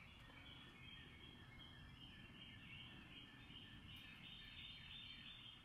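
Near silence: faint outdoor ambience with high, continuous chirping in the background.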